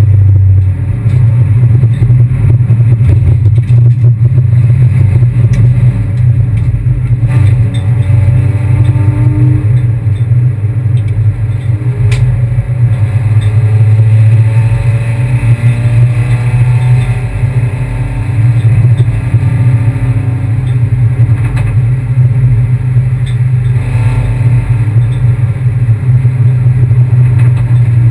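Kia Picanto race car heard on board: a loud, steady low drone of engine and road noise, with the engine note rising and falling as it is driven through the gears, and a few brief knocks.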